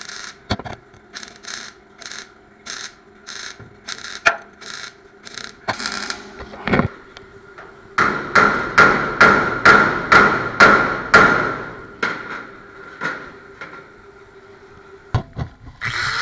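MIG welder stitch-welding the steel upper windshield channel of a 1955 Ford F100 cab: a string of short arc bursts about three a second, louder and closer together from about eight seconds in, over a steady hum. An angle grinder starts up right at the end.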